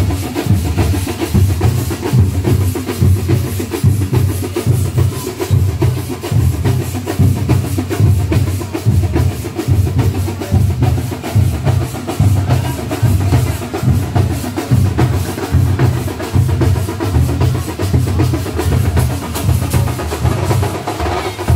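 Loud drum music with a heavy, fast, steady beat, the kind played for street dancing at a festival.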